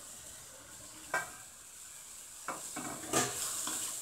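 Chopped vegetables being stirred into frying masala in a stainless steel kadai: a metal spoon scrapes and clinks against the pan several times, louder near the end, over a soft steady sizzle.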